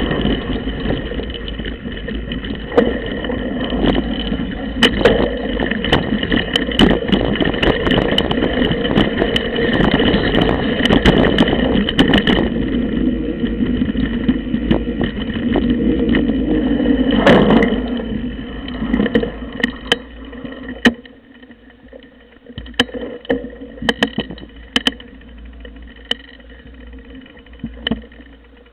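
Rattling ride noise from a camera on a mountain bike moving fast over a dirt trail: a rough rumble of tyres and bumps full of clicks and knocks, with one heavy knock about 17 seconds in. Around 20 seconds in the rumble dies away as the bike stops, leaving only scattered clicks of handling.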